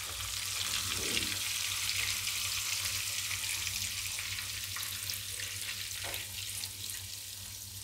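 Cauliflower florets sizzling in hot oil in a nonstick kadai as a thin stream of water is poured in: a steady hiss that eases off toward the end.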